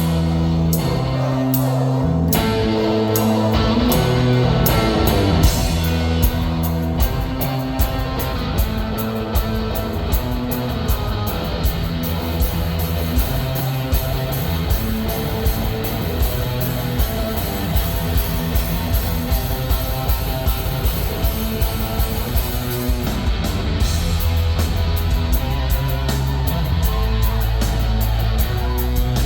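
Live rock music from the stage: electric guitar and a drum kit playing together, the drums keeping a steady, regular beat.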